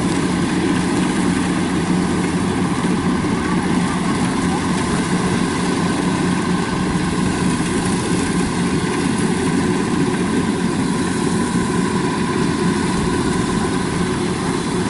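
Kubota DC-93 combine harvester running steadily while harvesting rice: an even, loud engine and machinery drone with no change in speed.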